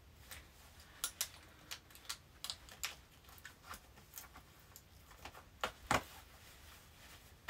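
Irregular clicks and clinks of a metal belt buckle being fastened and adjusted on a belt, the loudest near the end.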